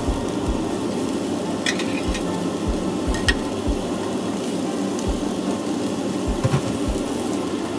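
Pieces of hairtail pan-frying in a nonstick frying pan with a steady sizzle, and a few light clicks as wooden chopsticks turn the pieces against the pan.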